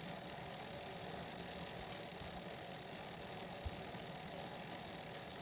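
Freshly lubed bicycle chain on a Trek FX hybrid running steadily over the sprockets and derailleur pulleys as the crank is spun by hand to work the lube in.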